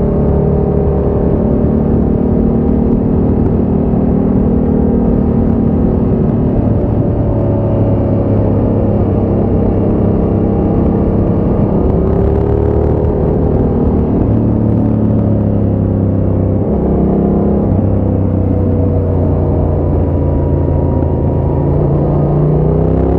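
2020 Yamaha Ténéré 700's parallel-twin engine through a Scorpion exhaust with the baffle removed, heard from the rider's seat while cruising. The engine note holds fairly steady, dips and picks up again around the middle, and rises as the bike accelerates near the end.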